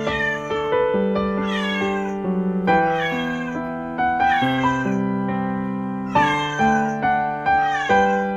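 A ragdoll kitten meowing repeatedly, about six separate meows that each fall in pitch, over background piano music.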